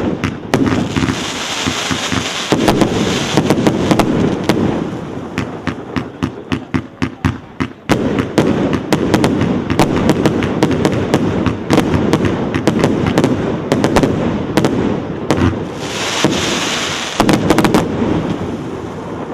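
Multi-shot consumer fireworks battery firing a continuous barrage: sharp bangs and pops over a steady crackle and hiss, with a quick run of evenly spaced shots about six to eight seconds in.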